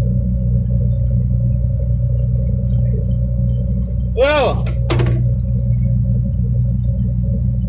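Combine harvester's engine running with a steady low hum. About four seconds in there is a short squeak that rises and falls in pitch, followed by a sharp click.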